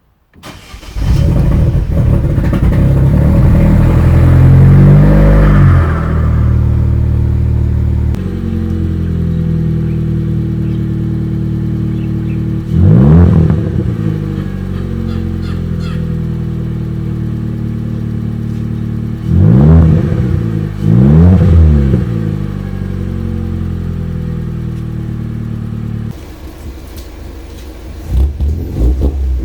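A modified car engine fires up from silence and runs at a loud, high idle that settles lower after several seconds. It is then revved in three quick blips, one about halfway through and two close together later. Near the end the engine sound drops to a lower, quieter running.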